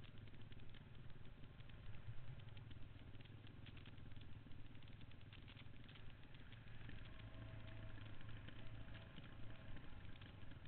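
Dirt bike engine running steadily at low trail speed, picked up by a helmet-mounted camera, with rattling and clicking from the bike and gear over rough ground.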